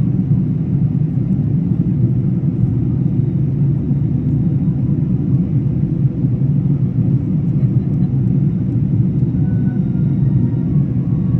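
Steady low rumble of an Airbus A380 airliner, even in level with no change in pitch.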